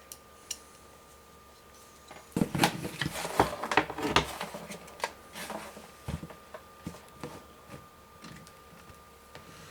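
Clicking and rattling of a plastic PC case fan and its mounting screw being handled against the case while the screw is worked into the fan's hole. A dense run of clicks comes about two seconds in, then scattered single clicks.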